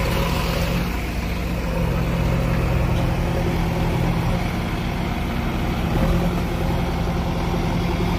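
JCB backhoe loader's diesel engine running steadily close by, a low, even engine note.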